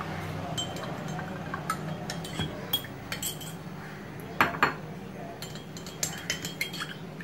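Steel spoon stirring in a glass mug of milk, clinking against the glass in a run of light, irregular clicks. The loudest knock comes about four and a half seconds in, over a faint steady low hum.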